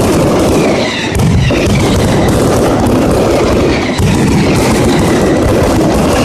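Mascletà: a dense, unbroken barrage of firecracker bangs, with faint whistling glides over it and a brief dip in intensity about a second in.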